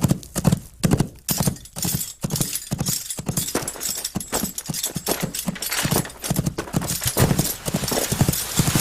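Horse hoofbeats clip-clopping in a steady rhythm, about two strikes a second at first, then coming faster and denser.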